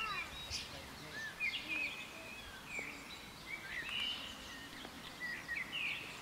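Songbirds chirping and singing, many short calls and quick whistled glides over a faint steady outdoor hum.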